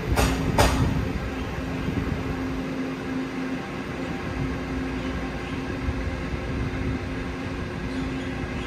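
Taiwan Railway EMU900 electric multiple unit pulling away from the platform: two sharp clacks of its wheels over the rail joints, about half a second apart near the start, then a steady rumble and hum as it moves off.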